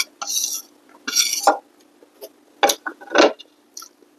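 A spoon scraping and clinking against a ceramic soup bowl: two short hissing scrapes, then two sharper knocks about two and a half and three seconds in.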